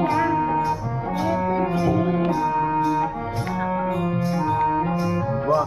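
Instrumental music with brass-like melody lines over a bass line and a steady beat of light percussion ticks.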